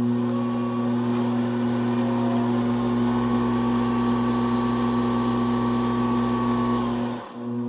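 Jar-test gang stirrer's electric motor running, its paddles mixing water and microsand in the jars. It gives a steady hum with a faint higher whine, dipping briefly near the end.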